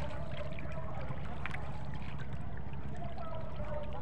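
Wooden paddle dipping and pulling through seawater as a small outrigger canoe is paddled, with water trickling and gurgling along the hull. Underneath are a steady low rumble and a wavering hum, and a short sharp splash comes about a second and a half in.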